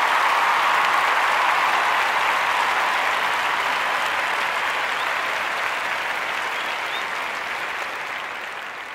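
Sustained applause from a crowd, loudest at first and fading out gradually toward the end.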